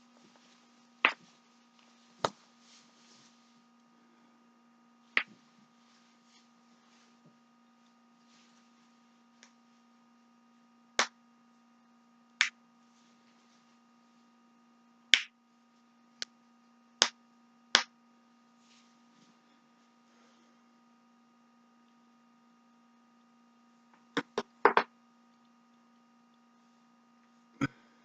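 Neck cracking: about a dozen sharp single pops from the neck joints, spaced a few seconds apart, with a quick run of about four pops near the end. A steady electrical hum runs underneath.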